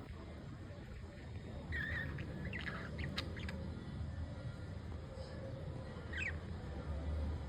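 Budgerigars giving a few short, scattered chirps and squawks, over a low steady hum.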